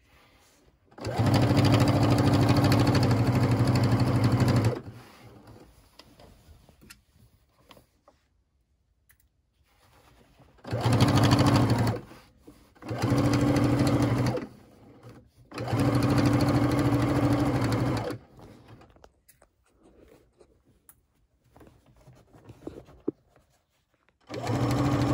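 Sewing machine top stitching a shirt's front band through bulky layers, running in four separate runs of a few seconds each with pauses between, and starting up again near the end.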